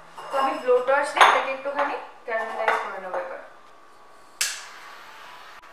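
Dishes and pans clattering and scraping with a wavering squeak, then a butane kitchen blowtorch lights about four seconds in with a sudden burst and keeps up a steady hiss as it browns meringue.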